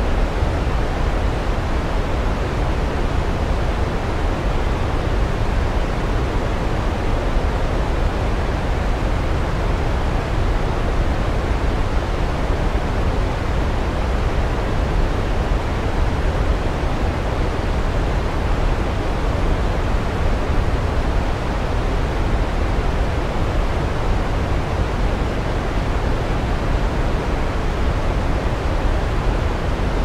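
Waterfall: a steady, even rush of falling water, unchanging.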